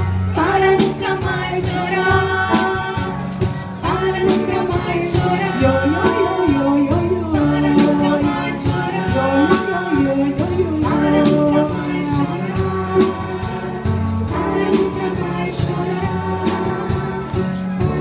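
A vocal group singing over piano and a drum kit, with steady drum and cymbal strikes. No lyrics come through.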